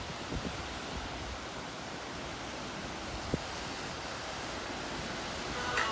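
Sea waves washing onto a beach: a steady, even rushing hiss, with a single short click about three seconds in.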